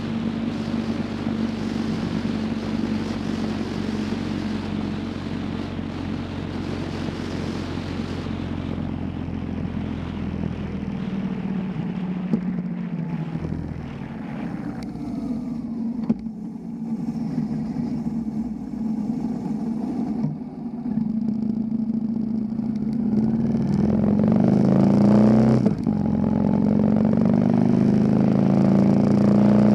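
Motorcycle engine running at a steady cruise with wind rushing past, then easing off and running quieter as the bike slows. Near the end it revs up in rising steps, accelerating through a gear change, and gets louder.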